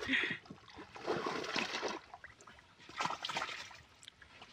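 Fish thrashing in a catch net, splashing the water in three irregular bursts.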